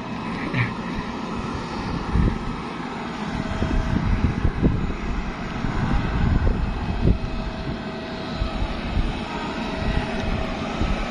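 Aircraft engine running on an airport apron: a steady hum with a few held tones, under uneven low rumbling.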